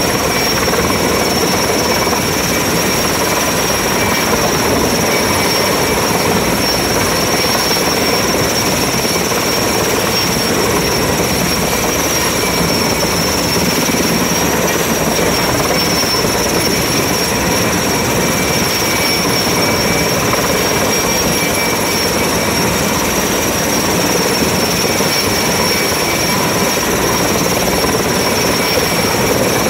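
Helicopter hovering low overhead while making a lift: a loud, steady rotor and engine noise with a constant high turbine whine.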